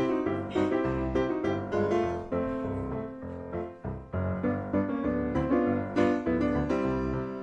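Background music: a piano-led tune, a quick run of notes over low bass notes.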